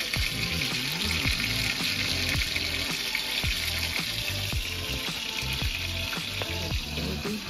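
Floured chicken pieces frying in a stainless steel skillet: a steady, even sizzling hiss.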